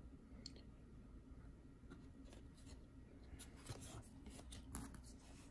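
Faint, irregular scratchy rustling of glossy trading cards being handled, slid against one another and set down on a pile.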